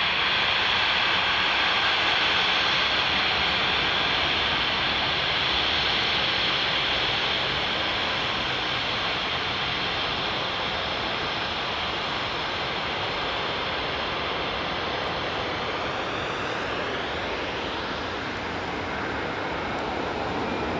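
Embraer 195's twin turbofan engines at take-off thrust: a steady jet roar with a strong high whine that eases after the first few seconds. A sweeping, phasing change in the sound comes about three-quarters of the way through.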